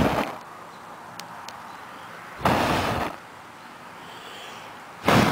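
A person blowing hard at a burning mullein-leaf and beeswax candle in three breathy puffs, the middle one the longest. The flame does not go out.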